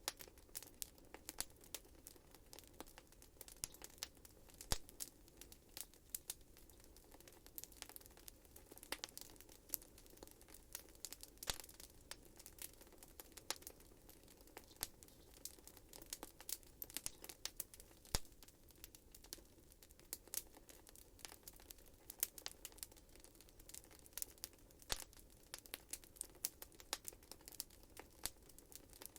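Wood fire crackling in a fireplace: many sharp, irregular pops and snaps over a faint, steady low background.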